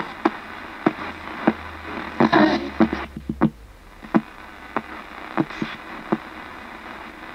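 Ghost box: a Thomson portable radio scanning through the AM band, clicking about twice a second as it jumps from station to station, over hiss and with brief scraps of broadcast voices about two seconds in.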